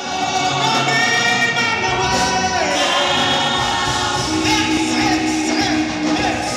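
Church choir singing gospel music in many-voiced harmony, with long held notes.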